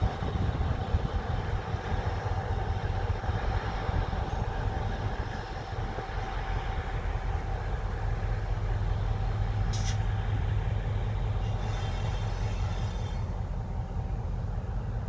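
Class 60 diesel-electric locomotive running as it slowly hauls a loaded steel train away, a steady low rumble with a steady whine over it. Wind buffets the phone's microphone, and there is a brief click about ten seconds in.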